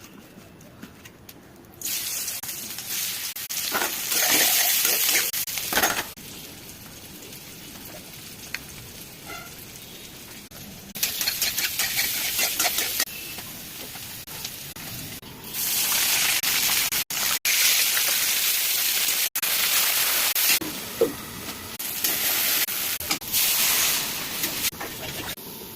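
Food sizzling and frying in hot oil in a pan, the sizzle coming and going in several loud stretches that start and stop abruptly, with a quieter hiss between them.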